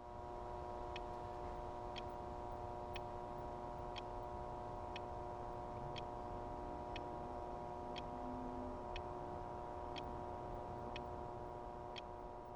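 A clock ticking about once a second over a steady electrical hum.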